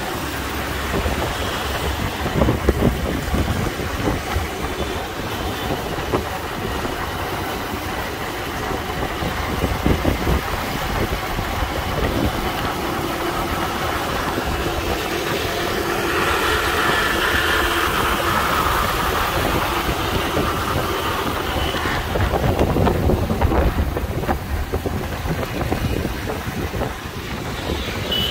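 Motorbike riding through city traffic: engine running, with road and wind noise rumbling on the microphone throughout. A vehicle horn toots near the end.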